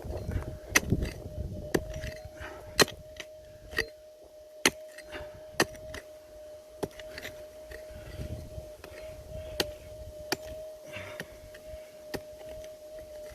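Metal detector's steady threshold hum under repeated sharp clinks of a pick digging into stony ground, about one strike a second, with gusts of wind rumble on the microphone.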